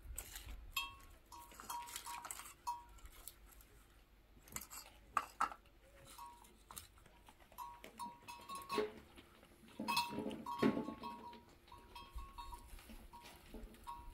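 Small livestock bleating in short, repeated calls, with a few sharp knocks and clinks mixed in.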